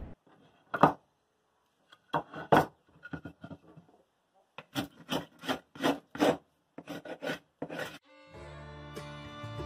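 Short scraping strokes on wooden parquet strips, a rasping rub coming about two to three times a second in the second half. Fiddle and guitar music comes in near the end.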